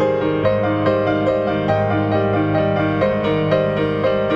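Background music: a soft piano melody, notes struck in a steady flowing rhythm over sustained low notes.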